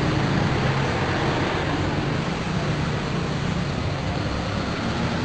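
Cars driving past one after another: a steady low engine hum over road noise.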